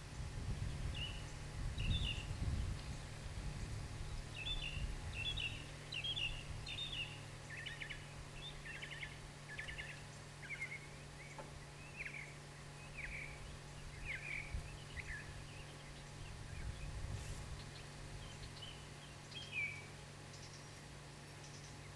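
Small birds chirping repeatedly in short high calls over a steady low hum, with low rumbling in the first few seconds and again briefly later.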